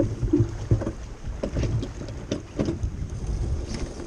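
Water rushing and slapping along the hull of a small keelboat sailing in chop, with wind rumbling on the microphone. Irregular splashes and knocks come through the first three seconds.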